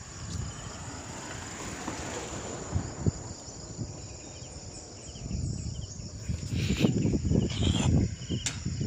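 Insects, crickets or cicadas, trilling steadily in a high pitch with short repeating chirps. From about six seconds in, louder low rumbling and rustling of wind and handling on the moving phone's microphone sits over them.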